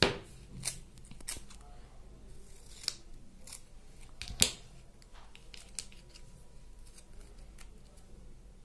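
Scissors snipping through paper: a few sharp separate snips, the loudest about four and a half seconds in, followed by faint rustling of paper being handled.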